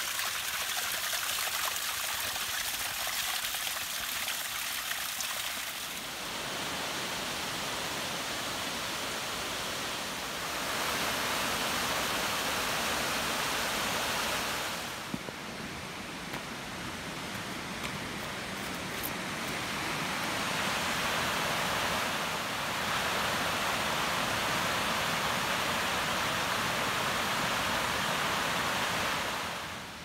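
Running water: a small waterfall spilling down a mossy rock face and a woodland stream, a steady rushing that steps up and down in level several times.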